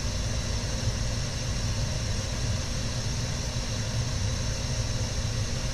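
Gas burner of an A.O. Smith Burkay copper-coil commercial water heater firing: a steady low rumble with an even hiss over it.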